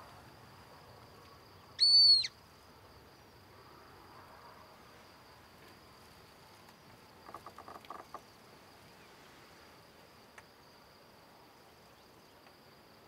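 Female Montagu's harrier giving one high, thin, level whistle about half a second long, about two seconds in: her food-begging call to the male. Under it, a steady high insect trill, and just before eight seconds a brief run of quick, lower pulsed notes.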